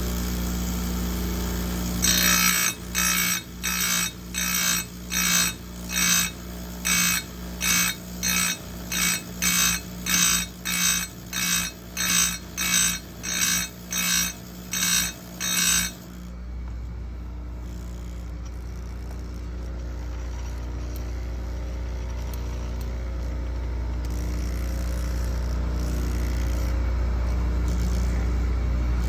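Oregon 410-120 bench chain grinder running, its wheel grinding the chain's cutters in about two dozen quick strokes, roughly two a second, each a short high grinding whine of steel on the wheel. The strokes stop about a third of the way in, and the motor then runs on alone with a steady hum that grows slowly louder.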